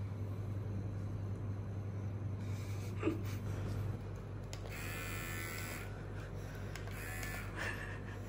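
Electric hair clippers running with a steady buzz, shaving a head. In the second half a rougher, higher rasp comes and goes as the blades work through hair.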